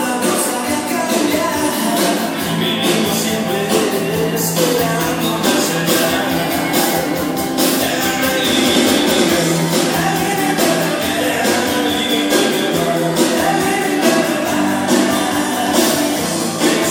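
Background music with a steady beat and singing, upbeat rock-pop style.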